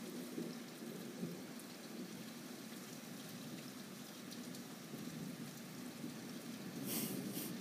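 Steady rain in a thunderstorm heard through an open window: an even hiss of falling rain with a low rumble beneath it. Two short, louder hissing bursts come near the end.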